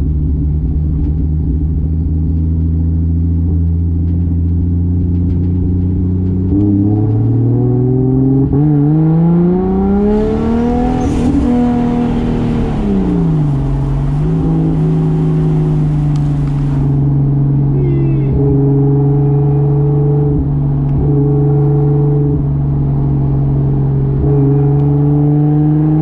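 Single-turbo Toyota 2JZ inline-six running steadily at low revs. About six seconds in, the revs climb for several seconds under acceleration with a rushing hiss, then drop back and settle to a steady cruise.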